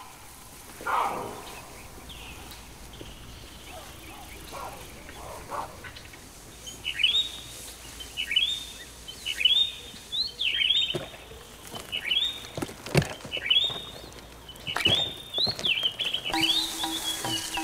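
A bird calling over and over, about once a second, each call a short note that rises and falls, with a few soft knocks among the calls.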